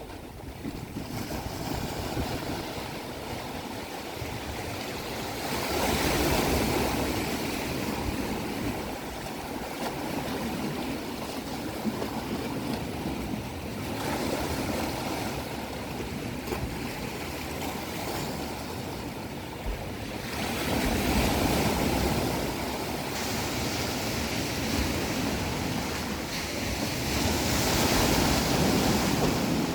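Ocean surf: waves breaking and washing in, the rush swelling up about every seven seconds over a constant background wash.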